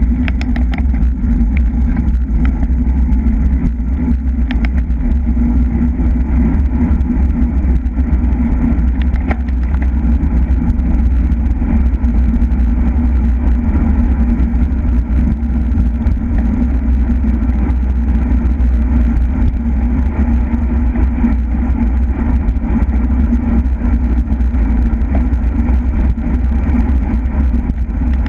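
Steady wind rumble on the microphone of a camera riding on a moving bicycle, heaviest in the low end, with a few faint clicks in the first ten seconds.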